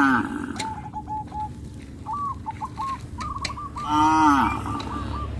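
Cows mooing, one call at the start and a longer, louder one about four seconds in, over short repeated bird chirps.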